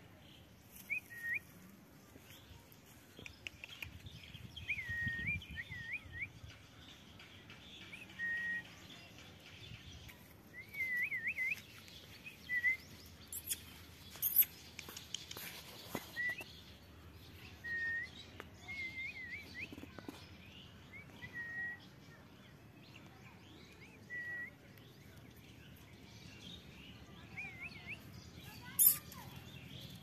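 Rose-ringed parakeets calling: short whistled, wavering chirps every second or two, with a sharp loud screech about halfway and a louder one near the end.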